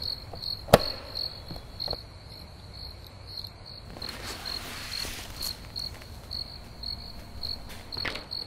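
Crickets chirping steadily, a high chirp repeating about three times a second. A sharp click comes about a second in, and a brief rustle about four seconds in.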